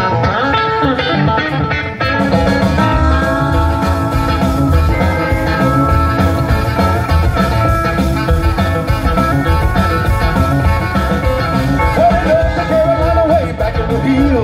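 Live country band playing an upbeat instrumental intro with electric guitar to the fore over bass and drums. The full band comes in about two seconds in.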